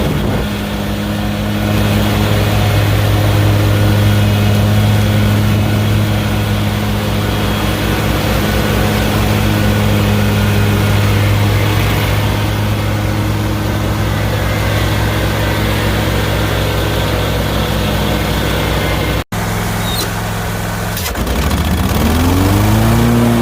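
Lawn mower engine running steadily at a constant pitch. After a brief break about 19 seconds in, the engine note drops, then revs back up, rising in pitch before it settles.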